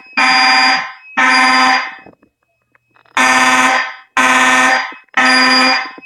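Fire alarm horn sounding a loud buzzy blast in the three-pulse evacuation pattern: three blasts about a second apart, a pause, then three more. This is a pull station activation putting the system into alarm.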